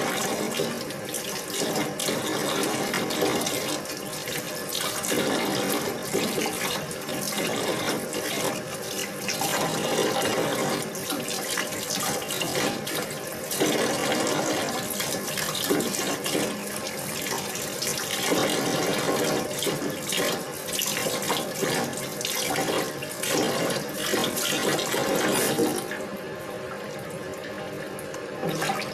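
Tap water running and splashing in a sink as green onion stalks are rinsed by hand, with uneven surges as the stalks are moved under the stream. The splashing gets quieter about three seconds before the end.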